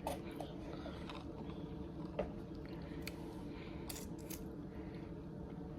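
Quiet eating sounds: chewing with a few scattered small clicks and smacks, over a steady low hum.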